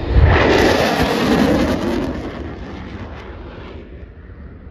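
Airshow pyrotechnic explosion: a sudden loud boom that rumbles and fades away over about three and a half seconds.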